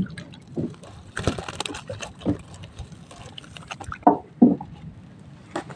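Irregular knocks and splashes of a small caught fish being handled at a boat's side and put into a mesh net bag in the water. The loudest knocks come at the very start and twice about four seconds in.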